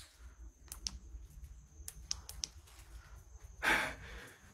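A few faint, sharp clicks, then about three and a half seconds in a person's heavy breath out, like a sigh.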